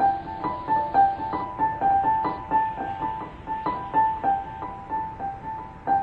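Background music: a keyboard instrument, piano-like, playing a quick, even run of single melody notes, about four a second.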